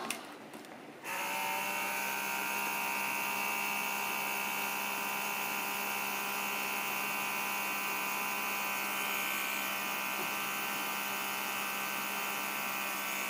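Cordless FoodSaver handheld vacuum sealer switching on about a second in and running steadily, its small motor pump drawing the air out of a FreshSaver container through the valve in its lid.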